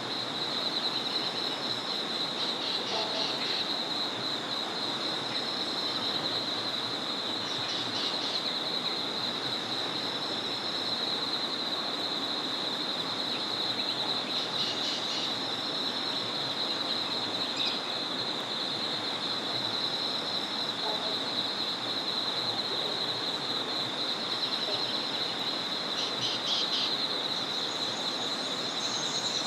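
A small forest river flowing steadily under a continuous high-pitched trilling chorus of insects or frogs, with birds giving short calls about five times.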